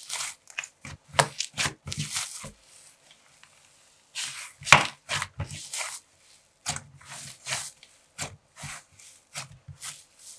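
Hands squeezing and pressing a soft orange slime, giving an irregular run of squelches and clicky pops. There is a short lull about a third of the way in, and the loudest pop comes about halfway through.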